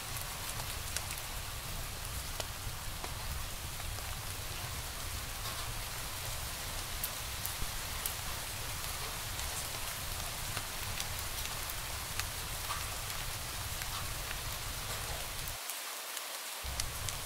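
Wood fire crackling in a fireplace: a steady hiss with scattered sharp pops and snaps over a low rumble.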